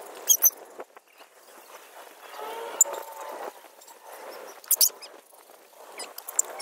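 A Doberman's metal chain collar and leash clinking in a few sharp, separate clicks as she moves and sits. The Doberman whines briefly about two and a half seconds in.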